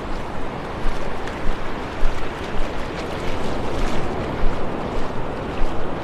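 Surf roaring as waves break over an offshore sandbar and wash up the beach, a steady rushing noise that swells and ebbs. Wind buffets the microphone with low rumbles.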